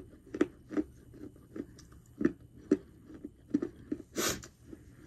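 Close-up chewing of a piece of Mexican terracotta clay: crisp, irregular crunches, about two a second. A brief hiss comes about four seconds in.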